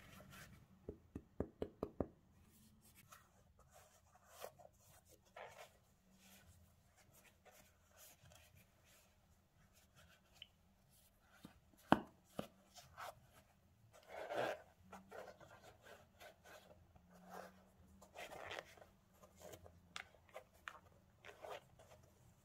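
Cotton-gloved hands handling a Nike Air Max Plus 3 sneaker: a quick run of about six light taps near the start, a single sharp click midway, and soft rubbing and rustling of glove fabric against the shoe's upper and laces in between.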